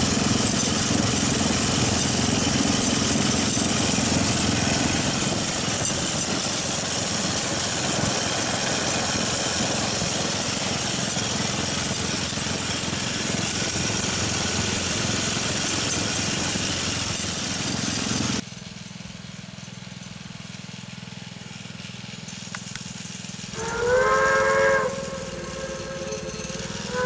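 Steady rushing noise of a rail bike riding along railroad track, which cuts off abruptly about two-thirds of the way through. Near the end a horn sounds once, a chord of several tones lasting about a second and a half, and starts again right at the end.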